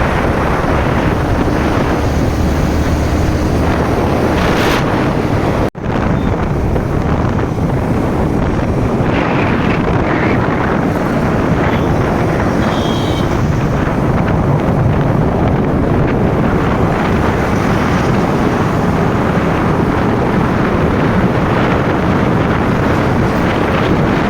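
Loud, steady rushing noise with wind buffeting the microphone, and a brief dropout about six seconds in.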